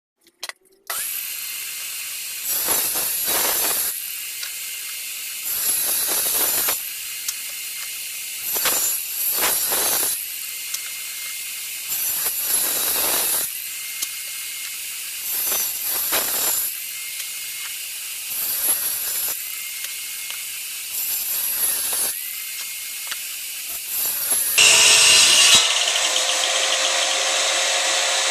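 Power saw ripping wood: the blade runs steadily with a high hiss, and about every three seconds it bites into the wood and gets louder for a second or so, eight times in all. Near the end a louder, steady noise with a low hum takes over.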